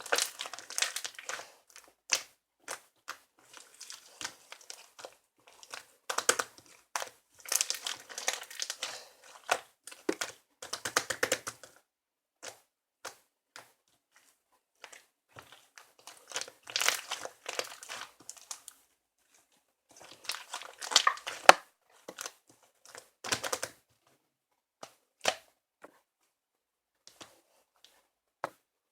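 Intermittent crinkling and tearing of handled material, in spells of a few seconds, with scattered sharp taps and clicks in between.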